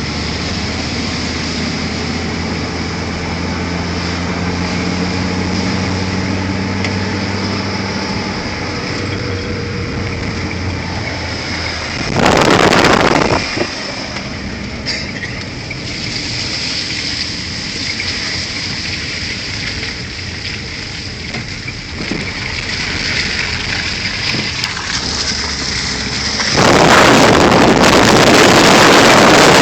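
A motor vehicle's engine running steadily under a constant hiss, fading into the background after about eight seconds. A brief loud rush of wind noise comes about twelve seconds in, and loud wind noise over the microphone starts near the end.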